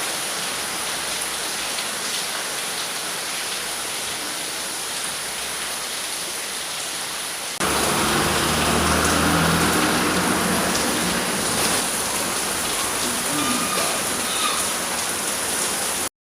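Stormy rain pouring steadily. About halfway through it cuts abruptly to a louder stretch of rain with a low rumble under it, and it stops dead just before the end.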